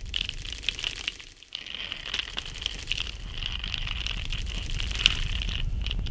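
Dense crackling and small clicks over a low rumble, with a brief dip a little over a second in and one sharp click about five seconds in.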